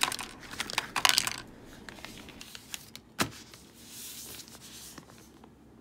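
Plastic packaging crinkling as small diamond-painting tools tumble out of their bag and click onto a tabletop, most of it in the first second and a half, with one sharp click about three seconds in.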